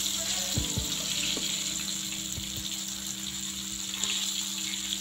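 Rani fish shallow-frying in hot oil on a tava, sizzling steadily, with a few soft knocks of the metal spatula against the pan.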